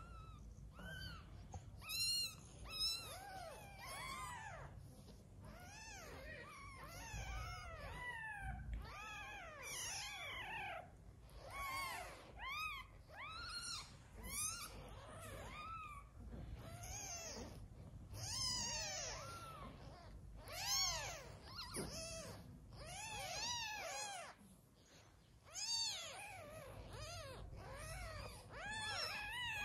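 Newborn kittens mewing: a rapid, continuing string of short, high-pitched cries that rise and fall, sometimes overlapping, with a brief lull near the end.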